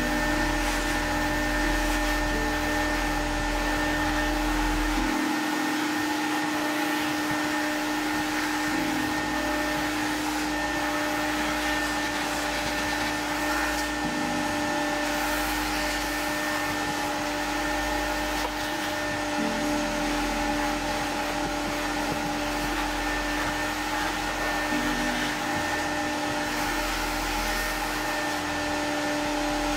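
Carpet extractor's vacuum motor running with a steady whine, pulling water up through the wand as it is drawn over soaked car floor carpet.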